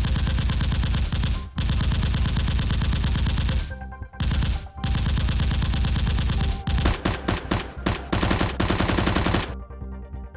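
Rapid automatic gunfire sound effect dubbed over the Nerf battle: several long bursts of fast shots with short gaps, a few separate shots about two-thirds of the way through, and a last burst that stops shortly before the end. Background music sits underneath.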